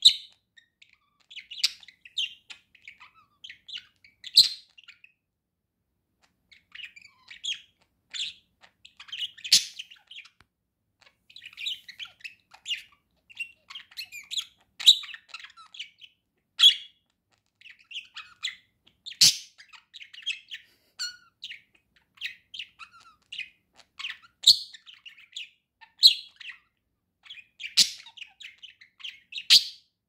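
Male budgerigar warbling: a long run of rapid chirps, chatter and sharp clicks, broken by a short pause about five seconds in.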